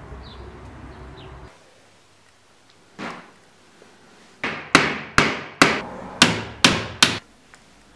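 Hammer striking a wooden frame of timber battens: a single blow, then a run of about seven quick blows, roughly two and a half a second, each ringing briefly.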